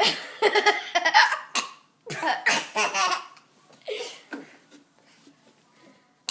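Bursts of loud laughter in three bouts, the last one short at about four seconds in, then dying away.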